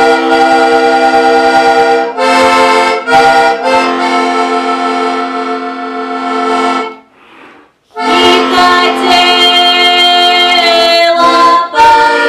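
Diatonic button accordion (heligónka) playing a folk tune in held chords. It breaks off for about a second around the middle, then resumes with a woman's voice singing along.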